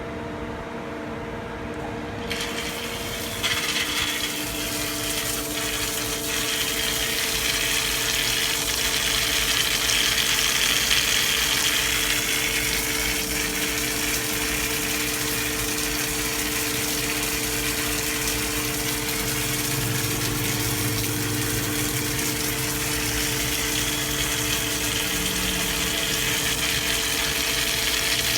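A CNC lathe running with a steady machine hum. About two seconds in, a loud rushing hiss comes in and carries on steadily.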